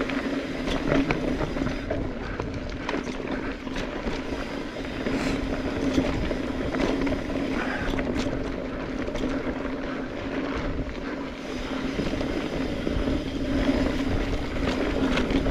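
Mountain bike, a Specialized Stumpjumper EVO, rolling along a dirt trail. A steady hum runs under scattered clicks and knocks from the bike rattling over the ground, with wind rush on the chest-mounted camera.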